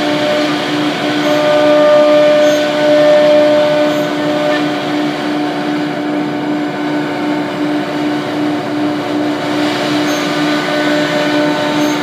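MK1325C2 double-spindle CNC router running, its spindle and bit cutting shapes through a wood sheet: a steady whine over an even hiss.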